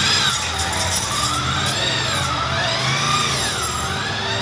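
An emergency vehicle's siren wailing, its pitch rising and falling over and over, over a low steady hum.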